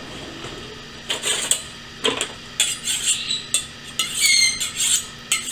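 Metal cutlery clinking and rattling in a kitchen drawer's cutlery tray as a knife is picked out. A run of separate clatters, some ringing, busiest near the end.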